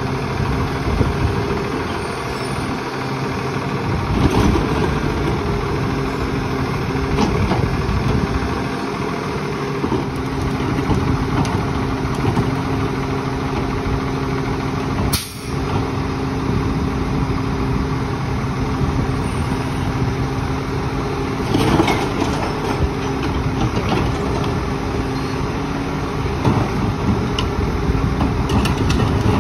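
Split-body Lodal garbage truck's engine running steadily at idle, with a few sharp knocks and clatters over it.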